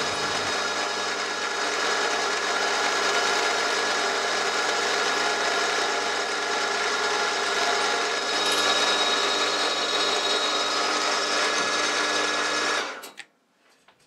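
Milling machine spindle running steadily with a 5 mm drill bit cutting a clearance hole through a metal part, a constant hum and whine from the machine. It stops suddenly near the end.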